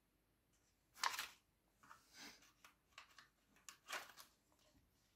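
Faint crinkling of an anti-static plastic bag around an electronics part being handled: a few short crinkles, the loudest about a second in, a weaker one just after two seconds and another near four seconds.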